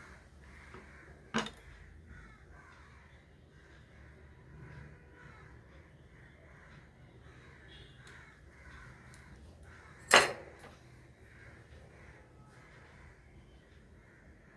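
Crows cawing over and over in the background, about two caws a second. Two sharp clicks cut through: one a little over a second in and a louder one about ten seconds in.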